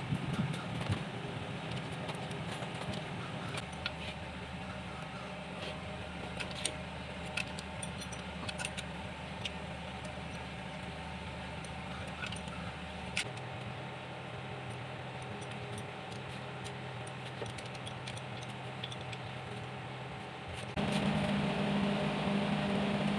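Scattered light metallic clinks of tools and engine parts being handled, over a steady machine hum that steps up louder near the end.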